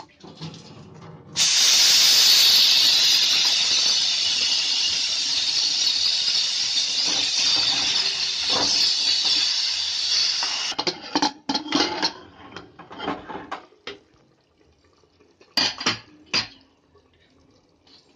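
Aluminium pressure cooker venting steam with a loud, steady hiss as its weight is lifted to release the pressure, starting about a second and a half in and lasting about nine seconds. Then a series of short metal clinks and knocks as the bar-clamp lid is unscrewed and lifted off.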